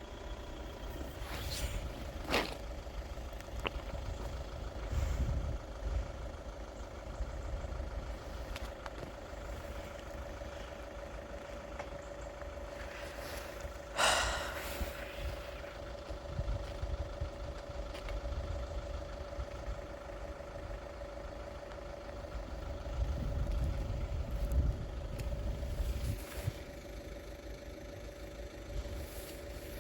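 Level crossing yodel alarm sounding steadily while the barriers are down, with wind buffeting the microphone at times. A sharp knock about halfway through.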